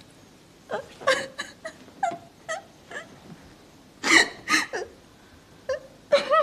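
A woman sobbing: a dozen short, high-pitched catches of voice and breath in uneven clusters.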